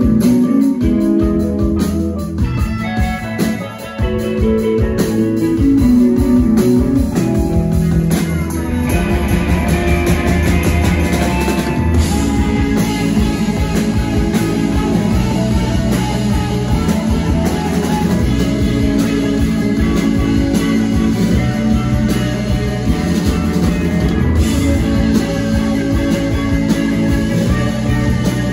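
Rock band playing live: electric guitars, bass guitar, drum kit and keyboard. The sound thins out briefly about four seconds in, then the full band comes back in.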